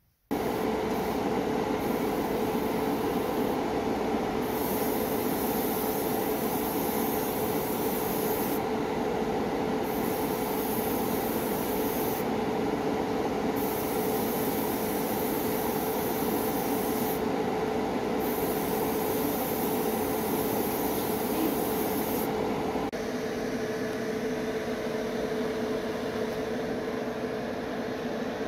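Small airbrush compressor running with a steady hum, while the airbrush's air hiss cuts in and out as the trigger is pressed and released, several times and for a second or so at a time.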